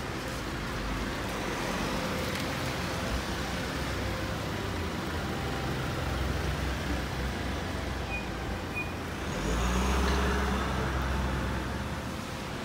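Car driving, with steady engine and road noise heard from inside the cabin. The low rumble swells about nine and a half seconds in and eases again near the end.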